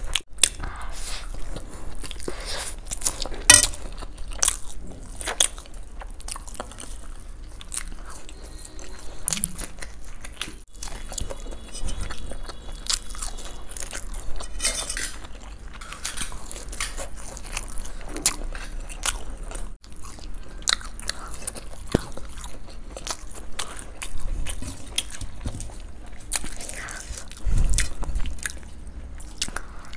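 Close-up eating sounds: repeated crunchy bites and chewing of gobi pakoda (deep-fried cauliflower fritters) and masala noodles, in many short, irregular crunches.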